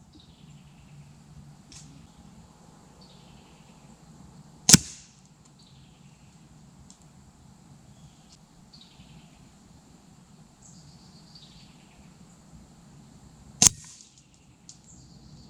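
Two air rifle shots, sharp single cracks about nine seconds apart, with quiet outdoor background between them.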